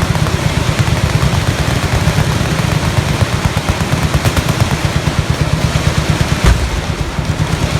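Sustained automatic gunfire from several machine guns firing at once, the shots overlapping into a continuous rapid rattle. A single heavier thump stands out about six and a half seconds in.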